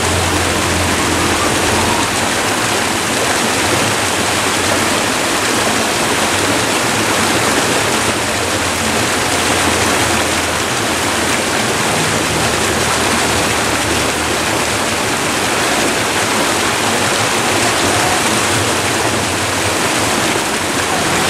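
River water rushing steadily over rocks in a small cascade of white water, a loud, even rush with no letup.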